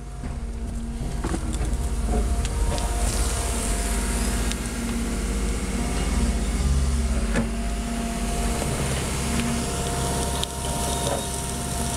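Tracked excavator's diesel engine running steadily, with a steady whine over it.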